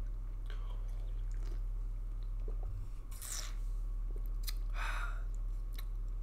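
Mouth sounds of a person drinking from a can and tasting: sips, swallows and lip smacks, with a couple of soft breaths out, over a low steady hum.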